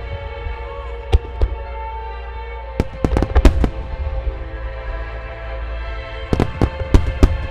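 Aerial firework shells bursting with sharp bangs: two single bangs about a second in, a rapid cluster of several around the three-second mark, and another cluster near the end. Show music plays steadily underneath.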